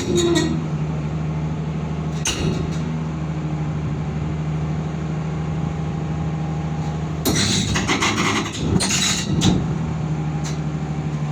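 Excavator's diesel engine running steadily, with a single knock about two seconds in and a louder stretch of clattering and knocks from about seven seconds in.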